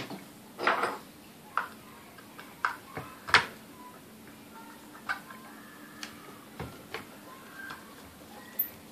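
Irregular light clicks and small metal taps, about a dozen, from hand disassembly at the rear of a vintage Sunbeam Mixmaster's motor housing as its back cap and dial are worked off; the loudest tap comes a little past a third of the way in.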